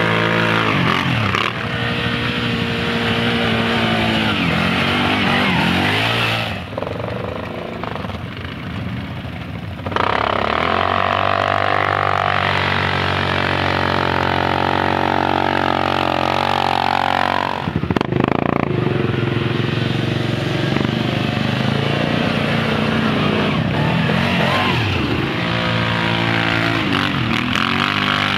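ATV (quad bike) engines revving up and easing off under load on loose sand slopes, the pitch rising and falling, with the sound changing abruptly a few times.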